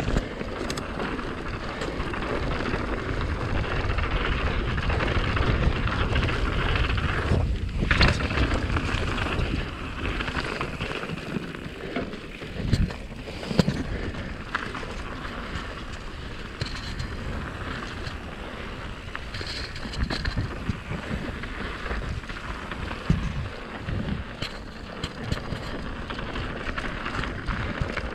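Wind rushing over the action camera's microphone while a YT Capra Core 1 MX full-suspension mountain bike rolls fast downhill, its tyres rumbling over dirt and gravel with a few sharp knocks from bumps. The rush is loudest in the first third and eases after about ten seconds.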